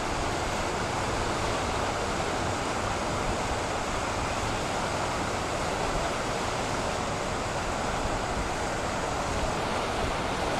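Steady, even rushing noise of wind and fast-flowing floodwater.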